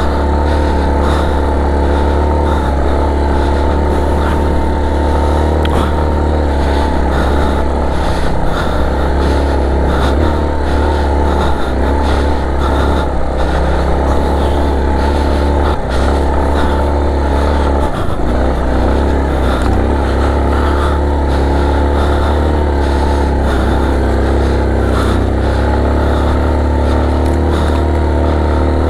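Adventure motorcycle engine running under way at fairly steady revs, with a heavy low rumble underneath. The revs drop briefly a couple of times past the middle.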